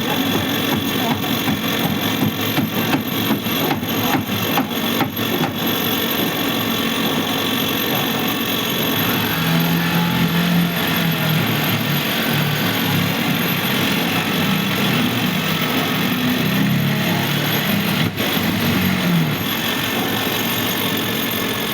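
Construction site noise: machinery running steadily, with a run of sharp knocks in the first few seconds.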